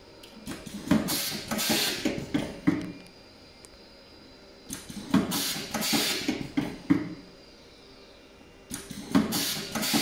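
Automatic optical fibre cable jacket stripping machine running its stripping cycle three times, about every four seconds. Each cycle is a couple of seconds of clicking and clacking mechanism with a burst of air hiss.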